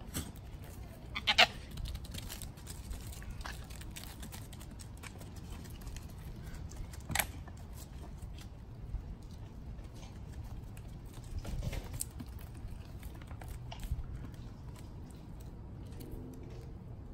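Small goats: one gives a short bleat about a second in, and there is a sharp knock about seven seconds in as two goats butt heads, with a few fainter knocks and shuffles over a steady low background rumble.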